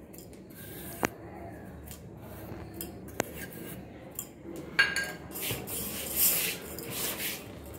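Hand rubbing and mixing a dry, crumbly flour, semolina and ghee mix in a metal pot: rustling and scraping of the mix against the metal, with a few light clicks. It grows busier and louder from about five seconds in.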